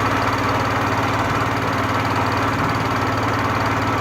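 Small boat's engine running steadily, with an even, rapid beat.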